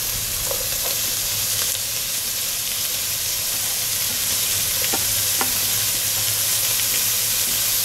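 Chopped spinach, green beans and cabbage sizzling as they hit hot oil in a large cooking pot and are stirred with a wooden spoon: a steady frying hiss with a few light scrapes and taps.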